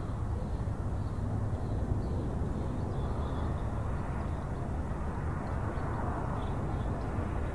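Steady low rumbling background noise outdoors, with no distinct events, as picked up by a nest camera's microphone.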